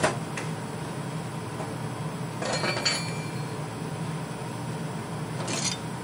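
Steel pieces and a hand tool clinking and scraping against each other: a sharp clink at the start, a longer scraping, ringing cluster about halfway through, and a short scrape near the end, over a steady low hum.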